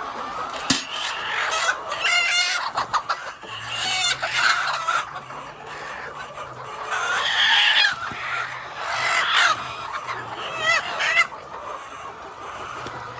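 Hens clucking and squawking, many short calls overlapping, some in quick repeated notes.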